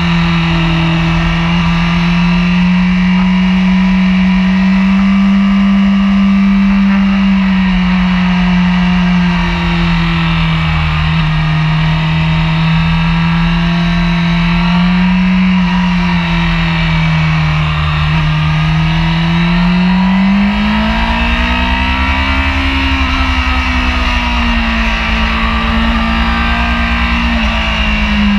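Honda sport bike's engine running hard on track. Its pitch slowly rises and falls as the throttle is worked through the bends, with a higher swell about three-quarters of the way through. Steady wind rush from riding at speed sits under it.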